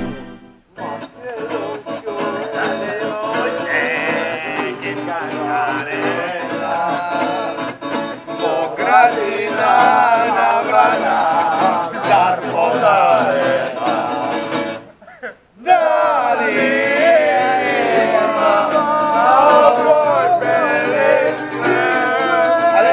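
Acoustic guitar strummed with a group of voices singing along. The music breaks off briefly about two-thirds of the way through, then starts again.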